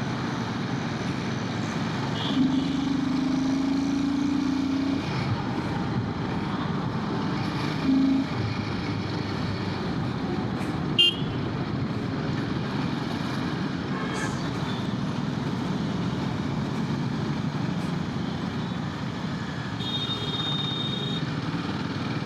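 Royal Enfield Himalayan 450's single-cylinder engine running at riding speed with steady road and wind noise in traffic. Another vehicle's horn sounds about two seconds in for a couple of seconds, and once more briefly near eight seconds.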